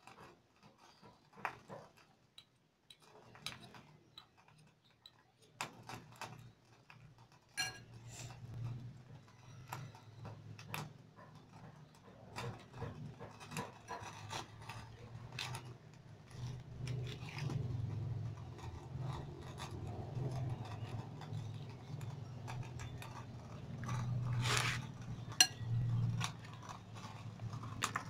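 Metal spoon stirring chopped vegetables and egg in a glass bowl, with repeated clinks and scrapes against the glass. A low rumble sets in about six seconds in and carries on underneath.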